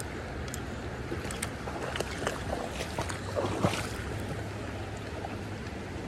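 Shallow creek water rushing steadily over a rippling riffle, with a few faint clicks.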